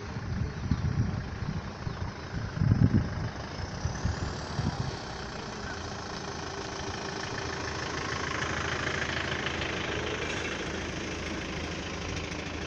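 Steady engine noise of idling vehicles or aircraft, with irregular low rumbling bumps in the first few seconds.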